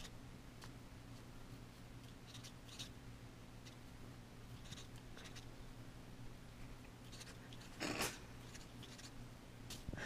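Pencil writing numbers on lined notebook paper: faint, short scratches of the lead, with a louder scrape about eight seconds in, over a steady low hum.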